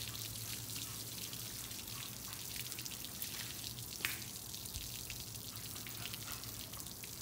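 Water dripping and trickling off a wet American Bully's coat onto a turf-covered table while shampoo lather is rubbed into its fur by gloved hands: many small wet ticks, with one sharper one about four seconds in. A low steady hum runs underneath.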